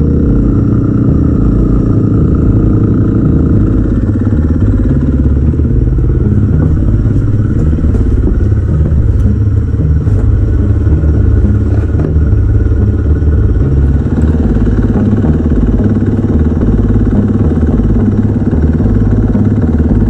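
KTM EXC-F 350 dirt bike's single-cylinder four-stroke engine running steadily under way, with a loud low rumble, on a break-in ride after a rebuild with a new piston, rings and timing chain.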